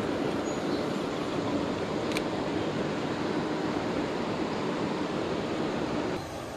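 Steady rush of river current running over riffles, with one short click about two seconds in. The sound drops quieter and changes about six seconds in.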